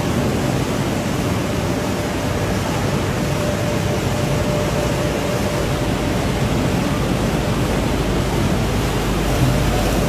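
Steady machinery din of a potato chip production line, conveyors and processing equipment running continuously, with a faint steady hum.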